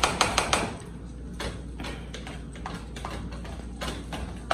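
Boiled red-skinned potatoes being mashed by hand in a metal saucepan with a mixer beater used as a masher. It starts as a quick run of knocking strokes, then slows to softer strokes about twice a second.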